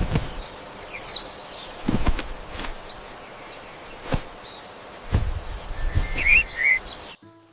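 Cartoon forest ambience with a few short bird chirps, about a second in and again around six seconds. Several dull thumps are spread through it.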